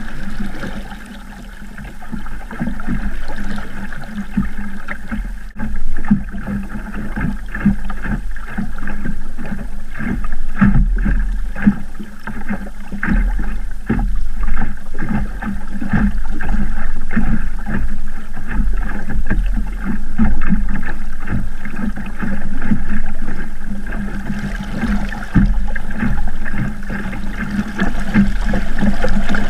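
Water rushing along and slapping irregularly against the hull of a small Sabot sailing dinghy under way through choppy water.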